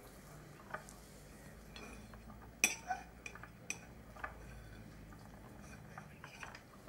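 Knife and fork clinking against a plate as food is cut: about half a dozen short, separate clinks, the sharpest a little before the middle, over a faint low steady hum.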